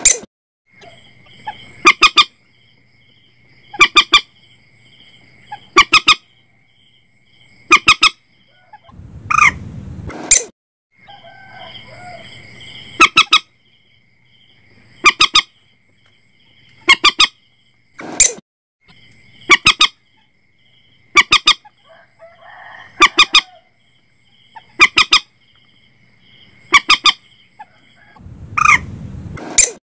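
Common moorhen calls: loud, harsh honking calls in clusters of two or three, repeated about every two seconds. A steady high trill runs underneath.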